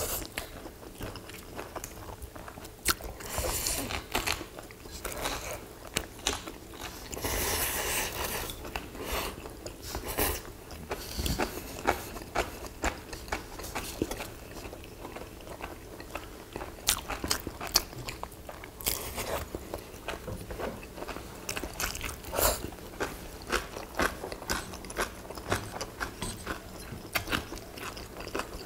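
Close-up eating sounds of two people: chewing and crunching of food, with frequent short sharp clicks of wooden chopsticks against ceramic bowls and dishes.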